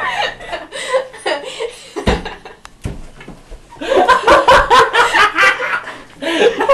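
A group of young men laughing and exclaiming, getting louder and more continuous in the second half, with a sharp thump about two seconds in.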